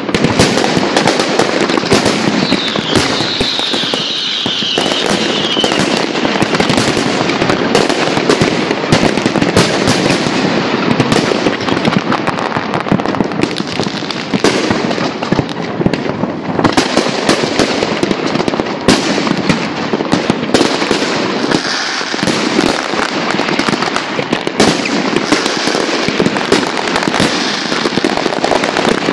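Big fireworks display with many aerial shells bursting at once: dense, continuous crackling and bangs with no break. A high whistle falls in pitch about three seconds in.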